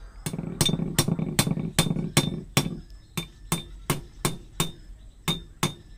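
Steel hammer striking a bearing outer race (collar) directly to drive it into the cast front wheel hub of a Mahindra Novo 655 DI 4WD tractor. The blows are steady, ringing and metallic, about three a second, and heavier in the first half.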